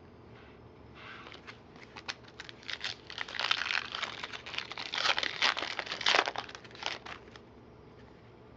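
A trading-card pack wrapper being torn open and crinkled. The crackling starts about a second in, is loudest in the middle and dies down near the end.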